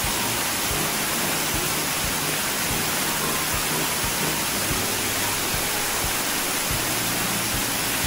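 Water pouring over a low concrete weir into a shallow stream: a steady, even rushing.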